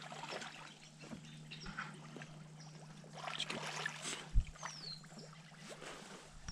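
Water sloshing and trickling with scattered small splashes as a person wades through shallow slough water, with a single low thump about four seconds in.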